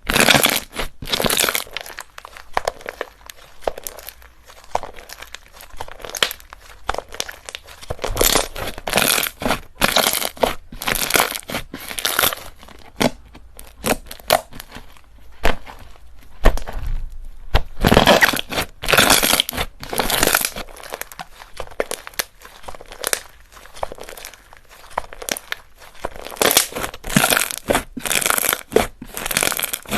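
Slime being squeezed, pressed and poked by hand, making irregular crackling, popping and crunching noises in quick bursts.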